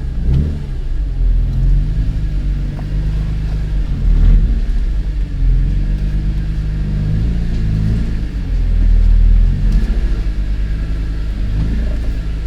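BMW E46 M3's S54 straight-six engine and exhaust running with a heavy low rumble, the revs rising and falling several times.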